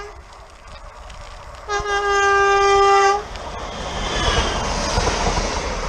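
Train horn sounding one steady blast of about a second and a half, then the rising rush of the train passing.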